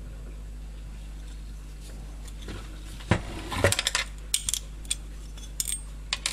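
A small aluminium plate and tools handled on a workbench: a few light metallic clicks and clinks in the second half, over a steady low hum.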